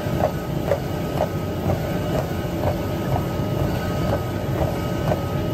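Treadmill running: a steady low rumble and faint whine from the belt and motor, with footfalls striking the moving belt about twice a second.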